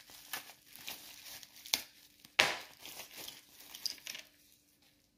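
Plastic wrapping crinkling and rustling as a small die-cast toy truck is unwrapped by hand, with irregular sharp crackles, the loudest about two and a half seconds in, dying away near the end.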